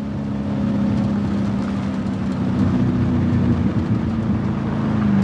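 Chrysler 300 sedan's engine running hard as the car drives fast along a dirt road, with steady tyre noise on the dirt. It grows louder over the first second or so, then holds steady.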